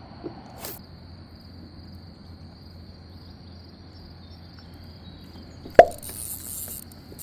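A single sharp plop into the river water about two thirds of the way in, followed by a short splashy hiss. This fits a small fish or a topwater lure hitting the surface.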